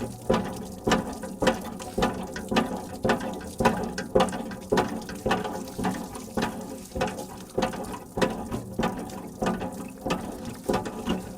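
Hand water pump being worked: its handle and mechanism clank in a steady rhythm about twice a second, over running water.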